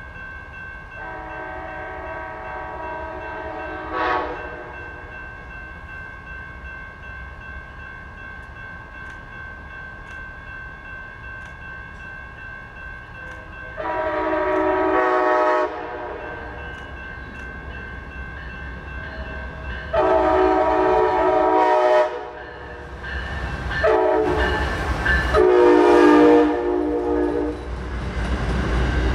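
Siemens ALC-42 Charger locomotive's multi-tone horn sounding a long, long, short, long pattern, the grade-crossing signal, as it approaches, after a fainter blast about a second in. Under the horn, the low rumble of the locomotive and its bilevel passenger cars rolling past builds toward the end.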